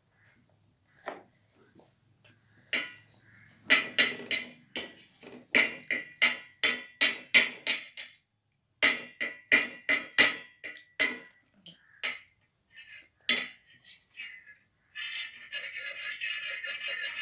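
Eating noises at the table: a run of sharp wet clicks, about two or three a second, with a short break in the middle, then a denser, faster crackle near the end.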